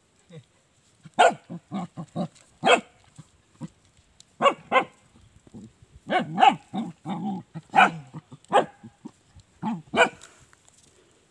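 Hunting dog barking in short, irregular single barks at a burrow where a mongoose is being dug out.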